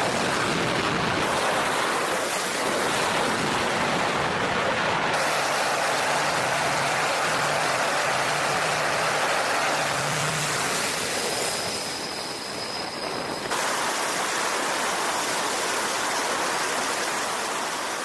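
Aircraft engines running on an aircraft carrier's flight deck during launch operations: a steady rushing noise that changes abruptly about one, five and thirteen seconds in, with a faint high whine from about eleven to thirteen seconds in.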